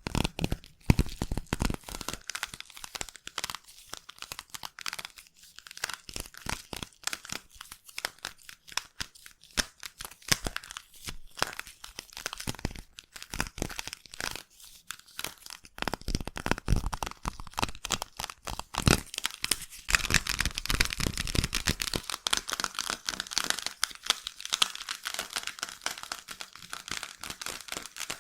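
Slime squished and pulled right against the microphone as ASMR ear-cleaning sounds: a dense, sticky crackling of many small pops. About two-thirds of the way through it turns denser and brighter.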